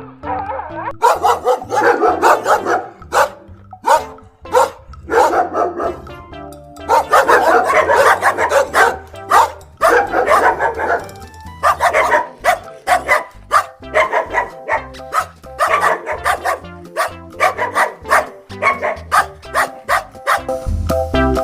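A dog barking over and over in short, irregular bursts, over background music.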